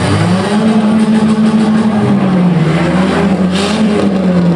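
Demolition derby cars' engines revving hard as the cars push against each other in mud, the pitch sagging and climbing again; a short hiss about three and a half seconds in.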